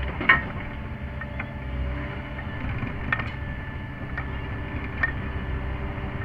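Sany SY50U mini excavator's diesel engine running steadily under hydraulic load, heard from inside the cab. A few sharp clanks come from the tooth bucket working: the loudest about a third of a second in, smaller ones around three and five seconds in.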